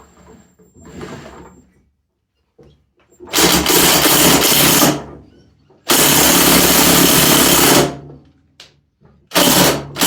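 Cordless impact wrench hammering on a small engine's flywheel nut in three bursts of about two seconds each. The nut does not break loose; it later turns out to be a reverse-threaded nut.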